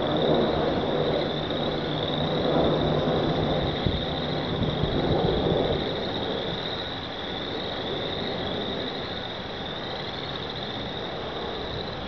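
A chorus of pond frogs calling together, a dense high-pitched sound that runs on without a break, over a low rumble.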